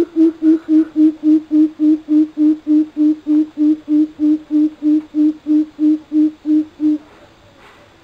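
Coucal (burung bubut) giving its deep hooting call: a long, even series of low hoots on one steady pitch, about three and a half a second, stopping about seven seconds in.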